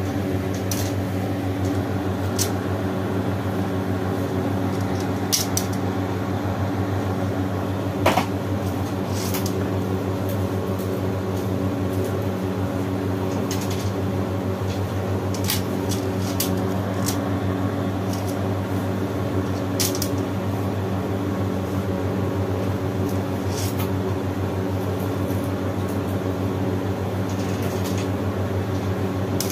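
A steady low mechanical hum with light, scattered clicks and taps, the sharpest about eight seconds in.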